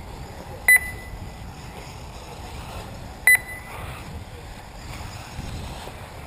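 Two short, high electronic beeps about two and a half seconds apart, over a steady low background rumble.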